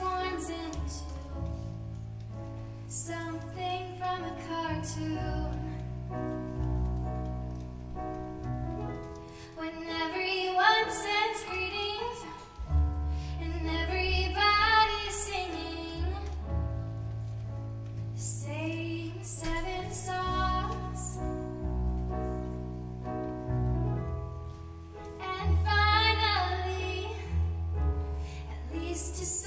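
A young woman singing solo with her own keyboard accompaniment: sung phrases with short breaks, over sustained low chords that change every second or two.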